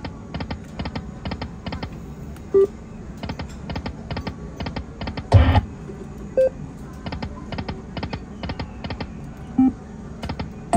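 Slot machine sound effects: a steady run of electronic clicks, about three to four a second, while the reels spin. A few short beeping tones are scattered through it, and a louder low thud comes about five seconds in.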